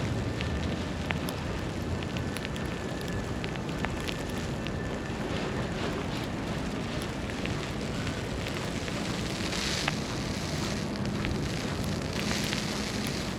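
City street ambience in a snowstorm: a steady wash of wind and low city rumble, with scattered small ticks and two swells of hiss, about two thirds of the way through and near the end.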